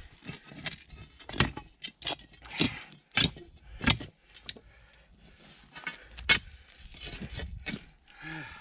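Metal tool striking stony, frozen ground: a run of sharp clinks and knocks at an uneven pace, the loudest about six seconds in.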